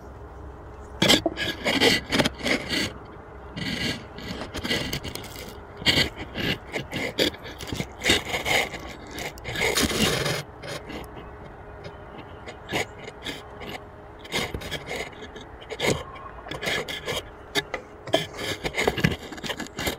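Irregular scraping and rubbing on the wooden beehive, a run of short uneven scrapes that begins about a second in, eases off briefly in the middle and picks up again.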